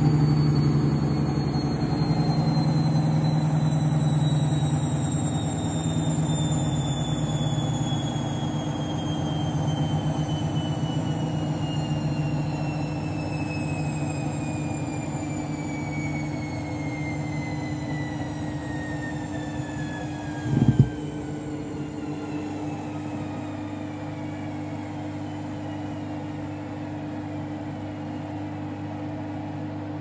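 Candy Grand'O Vita washing machine drum spinning down with a badly unbalanced towel load: the motor's whine falls steadily in pitch and the rumble fades. A brief thump comes about twenty seconds in, then a low steady hum.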